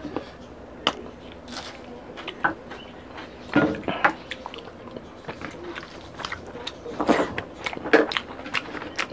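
Close-up eating sounds: scattered crisp bites and chewing, with raw cucumber slices being bitten and rice eaten by hand. The sharpest crunches come about four seconds in and again near seven to eight seconds.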